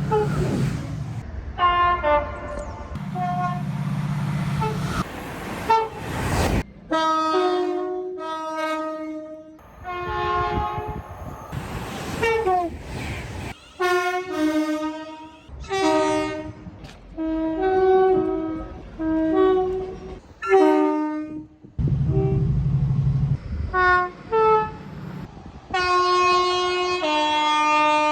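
A run of British train horns, clips cut one straight after another: mostly two-tone horns sounding alternating high and low notes, some as short toots and some as longer blasts, with a train's low running noise under a few of them.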